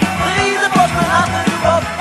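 Band music from a recorded song: regular drum hits under a melody line that bends up and down in pitch.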